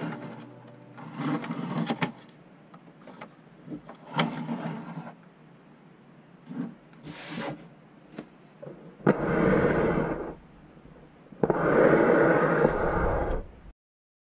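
Plastic Duplo toy truck handled and rolled across a hard tabletop: a few short rubbing and scraping bursts, then two louder, longer rolls near the end.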